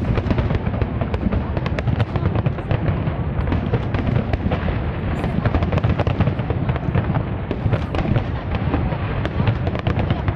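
Aerial firework shells bursting in quick succession: a dense, unbroken string of bangs and crackles over a deep rumble.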